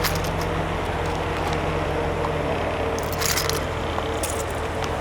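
Pontiac G8 GT's 6.0-litre V8 idling steadily through Pypes Violator axle-back mufflers, with a brief light rattle about three seconds in.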